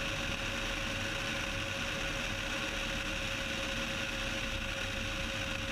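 Steady, even drone of a Cessna 172's engine and airflow in flight, with a thin steady tone running through it.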